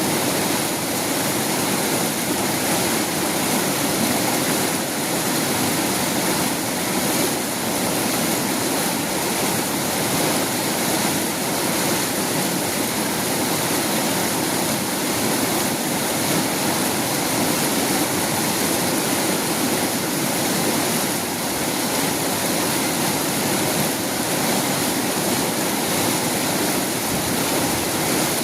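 Fast-flowing river water rushing steadily, an even, unbroken rush with no breaks or changes.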